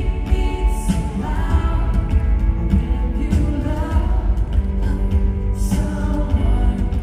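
Live pop band with singing, acoustic guitar and drums, heard from among the audience in a large arena, heavy in the bass.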